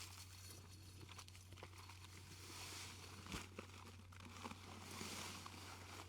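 Faint rustling hiss of dry concrete mix being poured from a bag into a post hole, swelling twice, with a few small clicks.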